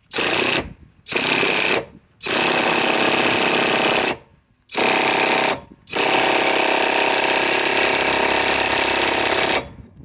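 Flex FX1451 mid-torque cordless impact wrench hammering on speed 2 in five pulls of the trigger. The first two are short; the last three are longer, and the final one lasts about three and a half seconds.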